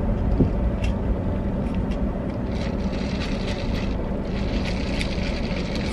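Steady low rumble of a car's engine and road noise heard inside the cabin as it drives off.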